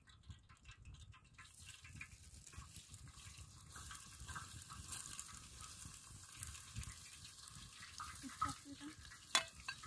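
Metal pots and bowls being handled, with a few clinks and one sharp clack near the end, over a faint steady hiss and brief low voices.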